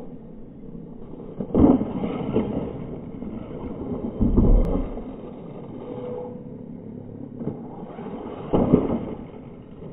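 Radio-controlled dirt bike's motor revving in three short surges, about a second and a half in, near the middle and near the end, over a steady lower running noise.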